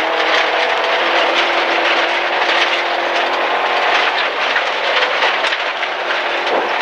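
Rally First MG ZR's 1.4-litre engine running hard, heard inside the cabin, over the steady rattle and pinging of gravel thrown against the underside of the car.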